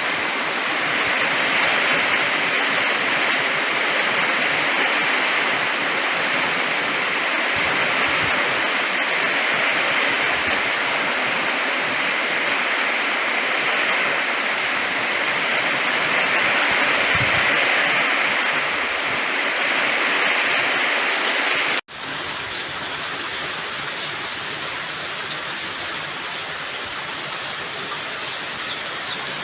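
Heavy summer-storm rain pouring down in a steady rush. About 22 seconds in it cuts off abruptly and gives way to a quieter, steady rush of rain.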